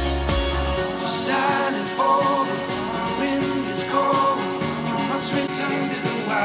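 A song with singing played back through Edifier R1280T bookshelf speakers and picked up by a microphone in the room. Near the end, playback switches to Creative T100 speakers.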